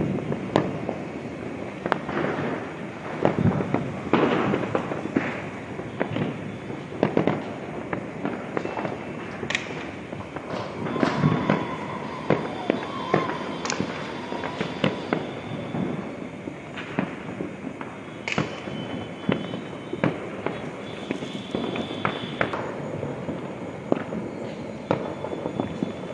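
Firecrackers and fireworks going off all over a city: sharp bangs at irregular intervals, some loud and some fainter, over a steady din of more distant ones.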